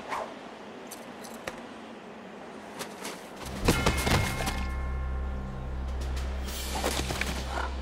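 Cartoon sound effects: a few faint clicks and short swishes, then about three and a half seconds in a thump and the start of steady background music with a low bass, with whooshing effects over it near the end.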